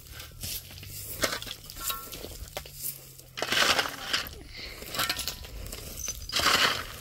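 Hard clinks and knocks of tools and bricks during masonry work, with two longer rough scrapes about three and a half and six seconds in, like a trowel or shovel working mortar.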